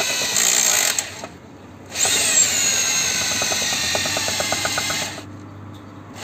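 Makita electric rotary hammer turning a horizontal boring auger rod into the ground, run in two bursts: the first stops about a second in, the second starts about two seconds in and runs about three seconds. Its high motor whine drops in pitch as the second burst starts.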